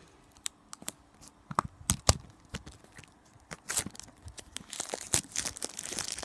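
Clear plastic shrink-wrap being picked at and peeled off a blind-box canister with a plastic lid: scattered sharp clicks and crackles at first, then continuous crinkling and tearing of the film from about three and a half seconds in.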